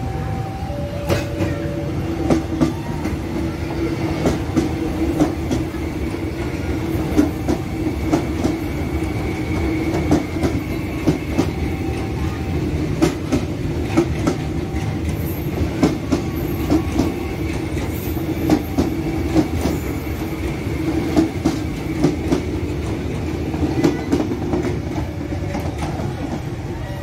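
A KAI Commuter electric multiple-unit train runs past close by, its wheels clacking repeatedly over the rail joints over a steady low hum. A level-crossing warning bell sounds in two alternating notes near the start and again near the end.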